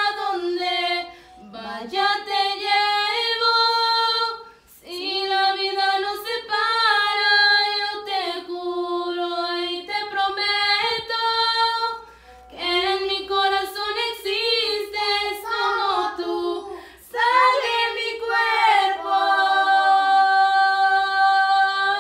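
A woman singing a slow Spanish-language ballad to her late father, without accompaniment, in phrases broken by short pauses for breath and ending on a long held note.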